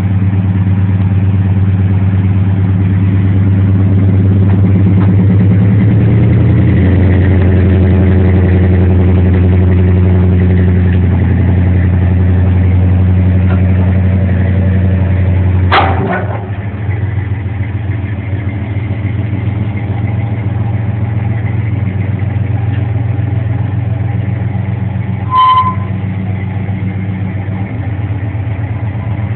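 Motor vehicle engine running steadily. About sixteen seconds in there is a sharp clunk, after which the engine runs quieter. A short high beep sounds near the end.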